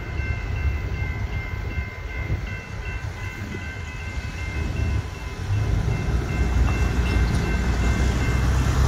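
Railroad crossing warning bells ringing in quick, even dings, about two to three a second, fading out as the crossing gates rise. A low rumble runs underneath and grows louder in the last few seconds as road traffic drives across the crossing.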